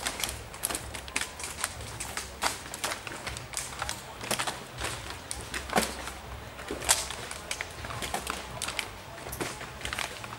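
Empty plastic PET bottles clattering and crackling as they are handled and packed into wire cages: an irregular run of sharp clicks and knocks.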